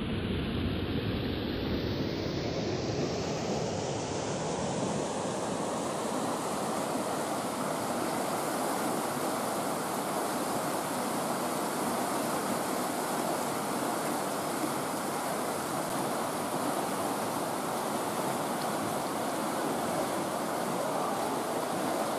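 River rapids rushing over boulders: a steady, even roar of whitewater that grows brighter over the first few seconds.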